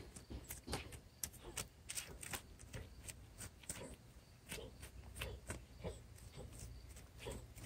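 Small dog digging in loose dirt with its nose down in the hole: quick, irregular scratches of claws in soil, with sniffs in between. Faint.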